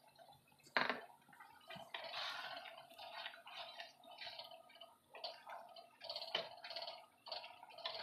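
A wooden spatula stirring thick, creamy paneer curry in a kadai: irregular wet squelching and scraping against the pan, with a sharp knock about a second in.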